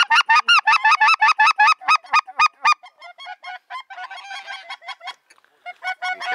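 Goose honking: a loud, fast run of calls, about five a second, which after a few seconds turns fainter and more scattered.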